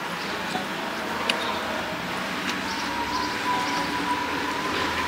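Town street ambience: a steady hum of traffic with scattered light clicks and knocks, and a thin steady whine that comes in about halfway through.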